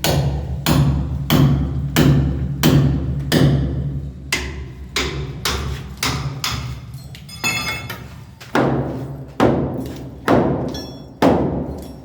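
Heavy hammer blows striking brick masonry, a steady series of about three blows every two seconds, each a sharp knock with a low resonant thud: workers breaking out a brick-and-M-sand mortar wall.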